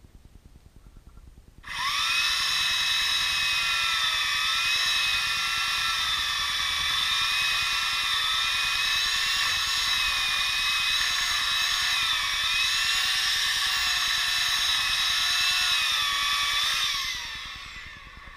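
Electric chainsaw switching on about two seconds in and running at a high steady whine while cutting through a dry apricot tree trunk, its pitch dipping slightly under load. Near the end it is switched off and winds down with a falling whine.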